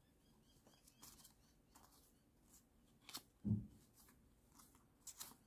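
Faint rustling and light clicks of trading cards sliding against each other as a hand fans and sorts them. A short, soft, low sound stands out about three and a half seconds in.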